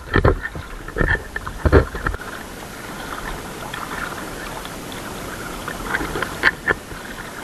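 Sea water splashing and sloshing as a person moves through it: a few sharp splashes in the first two seconds, a steady wash of water in the middle, then more splashes near the end.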